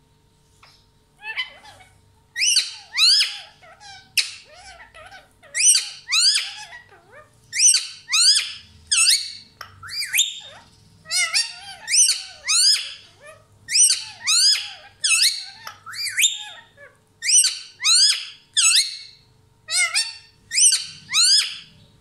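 Rose-ringed parakeet giving loud, harsh screeching calls in quick runs of two or three, starting about a second in and repeating every second or so.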